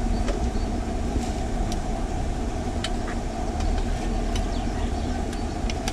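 Wood fire under a pot of heating cooking oil, giving a few scattered sharp crackles over a steady low rumble.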